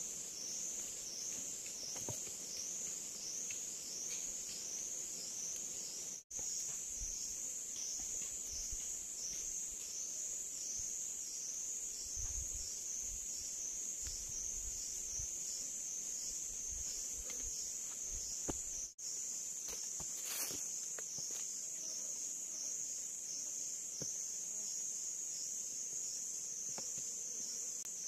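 A high, steady insect buzz fills the air, pulsing about twice a second through the first half. Faint taps and scrapes of hand work with a knife and bamboo stakes sound beneath it.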